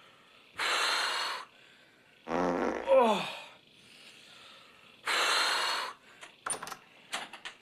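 A man groaning "oh" in a falling voice, with long, heavy breathy exhales before and after the groan, the sounds of a man in misery from a bloated, gassy stomach. A few soft clicks come near the end.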